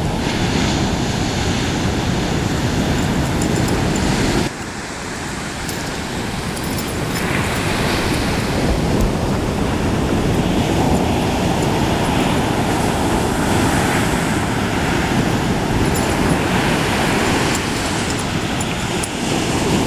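Ocean surf breaking close by: a steady roar of waves, with wind on the microphone.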